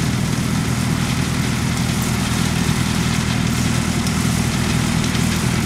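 Diesel engine of farm machinery running steadily at an even speed.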